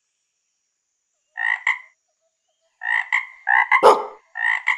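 Siamang gibbons calling with inflated throat sacs: after a second or so of silence, short repeated barking calls come in four quick groups, one louder and deeper near the end.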